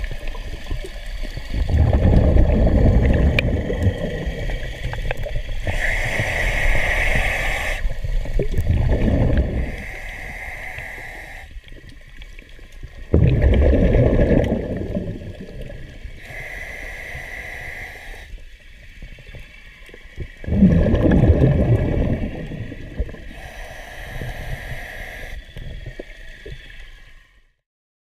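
Scuba diver breathing through a demand regulator underwater, heard through the camera housing: a short hiss on each inhalation, then a longer, louder gurgle of exhaled bubbles, about four breaths in a slow, even rhythm. The sound stops just before the end.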